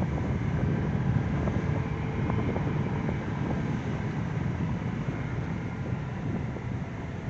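Car driving along a winding paved road: a steady low rumble of engine and tyres.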